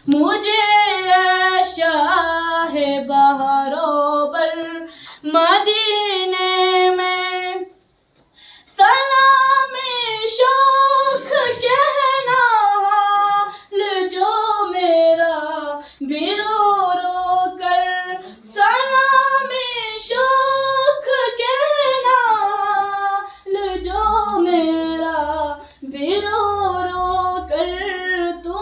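A girl singing an Urdu naat unaccompanied into a microphone: one voice in long, held, ornamented phrases of a few seconds each, with a short break about eight seconds in.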